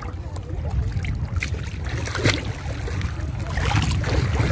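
Seawater sloshing and lapping around a person wading waist-deep, with scattered small splashes over a steady low rumble.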